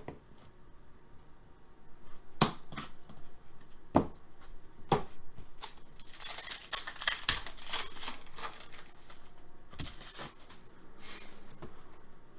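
Trading cards and their packaging being handled: a few sharp snaps and taps, then a stretch of crinkling and rustling about halfway through, with more brief crinkles near the end.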